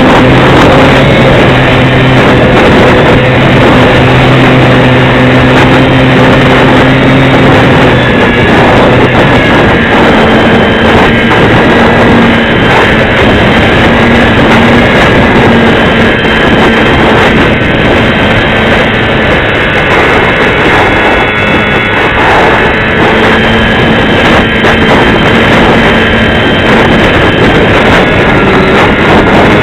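Motor and propeller of a Visionaire RC aerobatic plane running, a steady whine whose pitch shifts a little with throttle, under heavy wind buffeting on the microphone.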